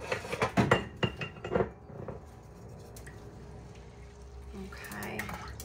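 Pots and utensils clinking and knocking, several sharp knocks in the first second and a half or so, then only a low steady hum.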